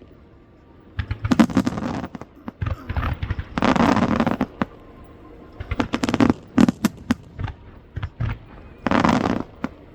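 Aerial fireworks bursting in rapid volleys of sharp cracks and bangs, in clusters a few seconds apart. The loudest are a dense crackling burst about four seconds in and another near the end.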